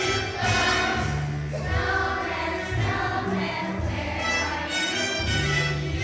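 Children's choir singing together over instrumental accompaniment with a steady bass line of held notes.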